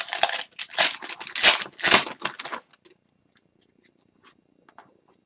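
Foil wrapper of a hockey card pack crinkling and tearing open, a quick run of loud rustles for about two and a half seconds, then only a few faint ticks.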